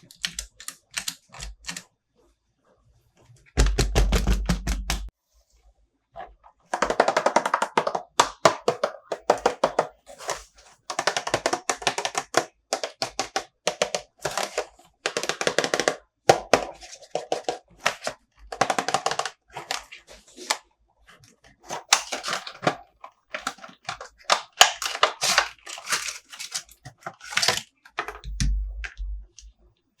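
Plastic toy packaging and figures being handled up close: quick runs of clicks, taps and crinkling rattles in bursts with short pauses between, and a heavier, lower rubbing stretch about four seconds in and again near the end.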